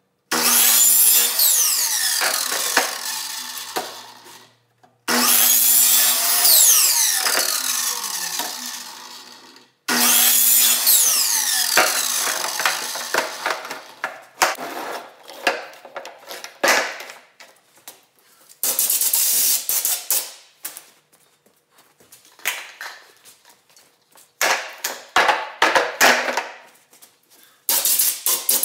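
Miter saw cutting PVC pipe three times in a row, each cut ending with the blade spinning down in a falling whine. After that come irregular clatters of the cut plastic pipe pieces being handled and set down on the wooden workbench.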